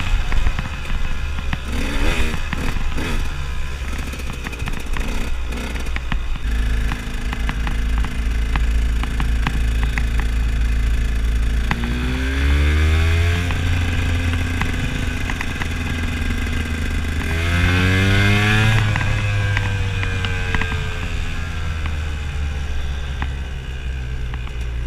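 KTM enduro motorcycle engine while riding, with rattling and clattering from the bike over rough trail in the first few seconds, then running steadily. It revs up twice, about twelve and eighteen seconds in, each time falling back afterwards.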